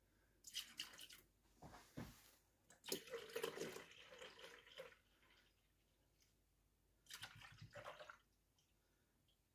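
Milk pouring from a carton into a Thermomix's stainless-steel mixing bowl, splashing in three uneven spells, the loudest about three to five seconds in.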